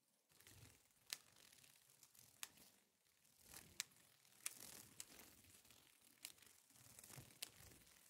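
Peacock butterfly wings flapping, a faint crinkly rustle broken by sharp, dry clicks about once a second.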